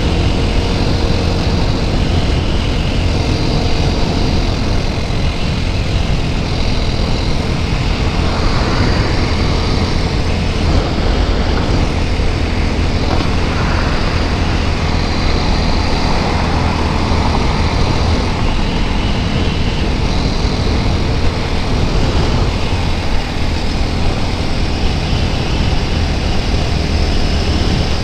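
Steady wind rush on the microphone over the TVS Apache RTR 200 4V's single-cylinder engine running at a steady highway cruise.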